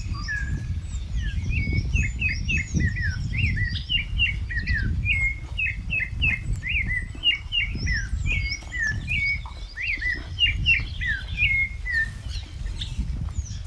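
A songbird singing a long run of quick chirping notes, several a second, rising and falling in pitch and stopping about a second before the end. Under it runs a low, uneven rumble of steps and movement on the dirt.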